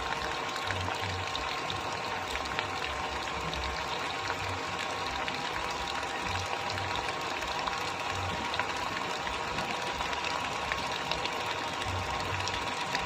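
Small electric motor of a homemade miniature water pump running steadily with a constant whine, with water flowing.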